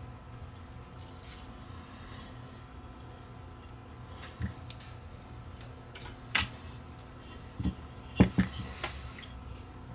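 Fingers scraping and picking old foam surround remnants off a Paradigm Titan speaker driver's metal frame, with scattered sharp clicks and taps, several close together about eight seconds in.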